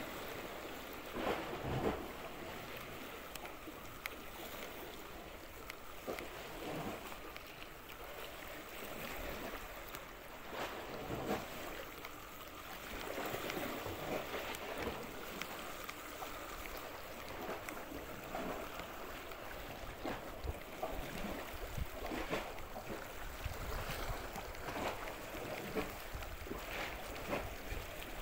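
Sea waves washing on the shore, swelling and easing every few seconds.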